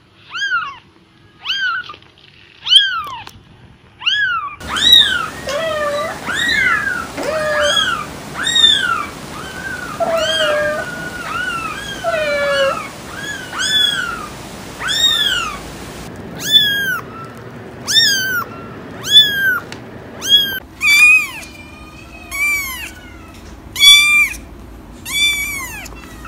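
Kittens meowing over and over, high-pitched short mews that rise and fall in pitch. At first there is about one a second, then several kittens call over one another.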